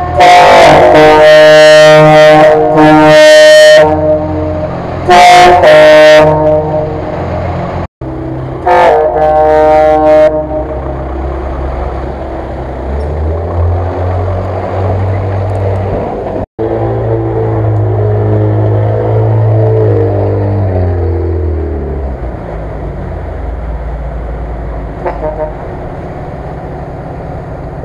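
Vehicle horn sounding three loud blasts, a long one then two short ones, inside a concrete culvert over the rumble of an off-road vehicle's engine. Then the engine runs and revs as a truck drives out through water, its revs falling away near the end.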